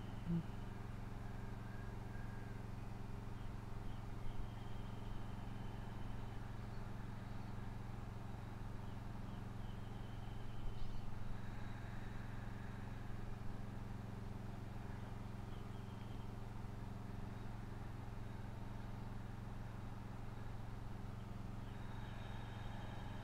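Faint outdoor ambience: a steady low hum, with a few brief, thin high bird calls now and then.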